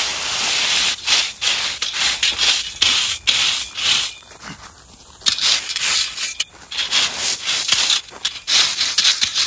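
Landscape rake scraping and dragging loose crushed gravel aside in repeated strokes, the stones rattling against each other.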